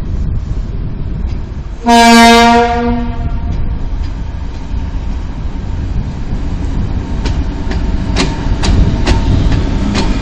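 M62 diesel locomotive (Soviet-built, two-stroke V12 diesel) running light and sounding its horn once, a loud low-pitched blast of about a second and a half, about two seconds in. Its engine rumbles underneath throughout. As it draws alongside near the end, its wheels click over rail joints about twice a second.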